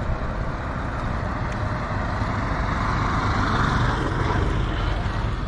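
A road vehicle passes by, its tyre and engine noise building to a peak about three and a half seconds in, then fading, over a steady low rumble.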